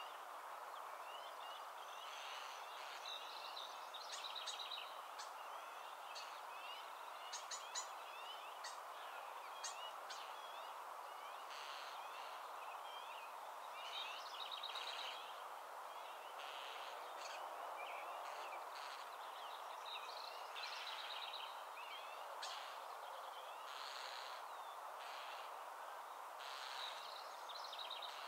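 Small birds chirping and trilling over a steady outdoor hiss, with short high calls and brief rapid trills every few seconds.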